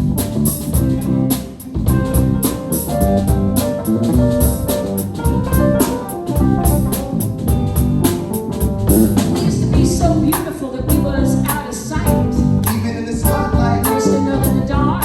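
Live band playing a song with drums, guitar and singing, a steady beat throughout.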